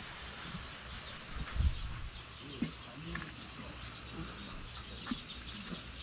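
Steady high-pitched chorus of insects singing, with a soft low thump about a second and a half in.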